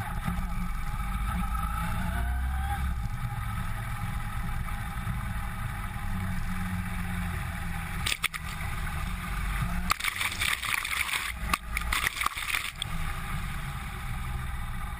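A vehicle driving through floodwater in a heavy downpour: a steady low rumble, with louder bursts of splashing about eight seconds in and again from about ten to thirteen seconds.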